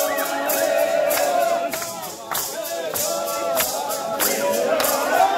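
Indigenous ritual dance chant sung in unison by a group of voices, with a rattle shaken on a steady beat.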